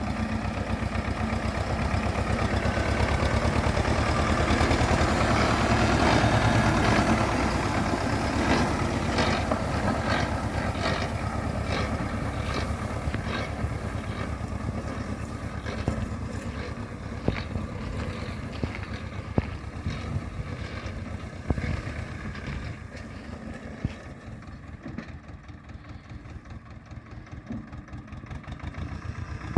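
Ursus C-335 tractor's diesel engine running steadily under load, pulling a Pöttinger rotary rake, with light mechanical clatter. It is loudest a few seconds in and fades over the last several seconds.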